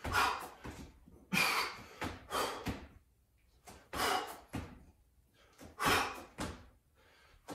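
Man breathing hard from exertion: loud, rushing breaths, roughly one a second with short quiet gaps between them.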